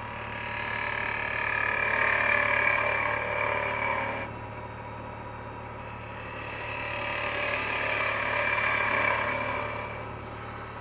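Wood lathe running with a steady motor hum while a bowl gouge cuts the outside of a spinning anacua end grain bowl blank; the scraping of the cut swells and fades twice as the tool makes two passes.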